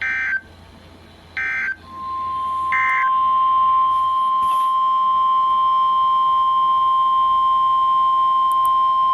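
Emergency Alert System signal: three short bursts of the screeching SAME digital data tones, then the single-pitch NOAA Weather Radio alert tone. The tone fades in and holds steady and loud, sounding the start of a new weather warning.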